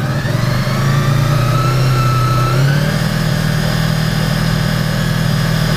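Honda VFR800's V4 engine running with the throttle held open, climbing in revs over the first second, holding steady, then stepping up to a higher, steady speed a little before the middle.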